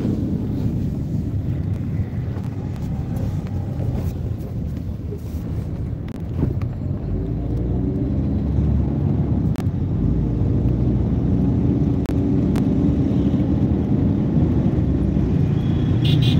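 Steady low engine and road rumble of a moving vehicle, heard from on board.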